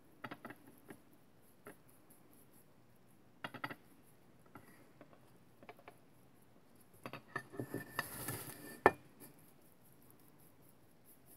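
Faint scattered clicks and taps, then a stiff brush scrubbing and mixing acrylic paint on a ceramic palette for a second or two, ending in a sharp tap.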